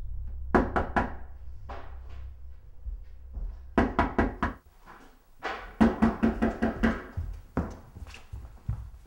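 Knocking on a door in bursts: a couple of knocks near the start, four hard knocks about four seconds in, then a quick run of about eight knocks, and one more near the end.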